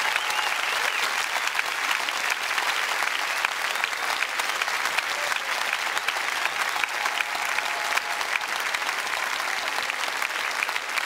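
Large arena audience applauding steadily, a dense patter of clapping with a few scattered cheers.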